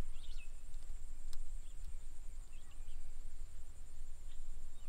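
Outdoor rural ambience: short bird chirps now and then over a steady high-pitched insect drone, with a low rumble underneath and one sharp click a little over a second in.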